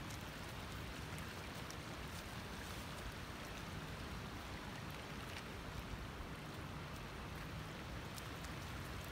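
Faint, steady lakeside ambience: a light rush of wind and rippling lake water, with no distinct events.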